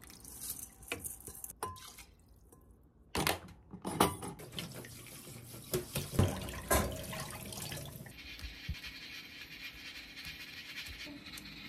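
Water from a kitchen tap's spray head running onto broccoli in a stainless steel bowl, splashing unevenly. It starts about three seconds in and becomes a steadier flow later on.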